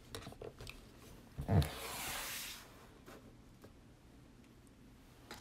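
Light handling noise: a few soft clicks, then a bump about one and a half seconds in followed by a short rustle lasting about a second.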